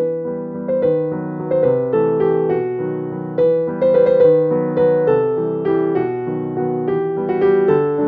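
Background piano music: a melody of single notes struck a few times a second over lower held notes.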